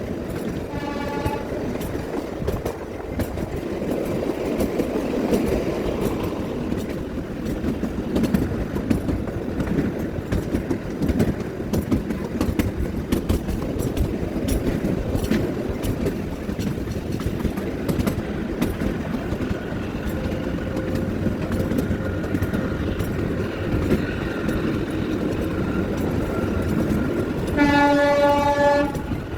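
Kalka–Shimla narrow-gauge train running, with a steady rumble of wheels clicking over the rail joints. The train's horn sounds briefly about a second in and again, louder and for a second or two, near the end.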